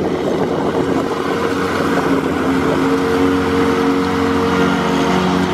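Lawn mower engine running steadily close by, with a constant pitch.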